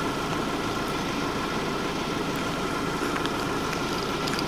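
A vehicle engine idling steadily: a low, even hum with a faint steady whine above it. A few faint small clicks come near the end as the flashlight is handled.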